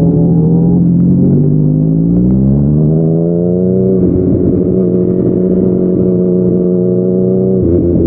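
Yamaha MT-09's three-cylinder engine through a Yoshimura R55 slip-on exhaust, under way. The revs climb steadily, the pitch drops at about four seconds, then it holds a steady engine note, and the revs shift again just before the end.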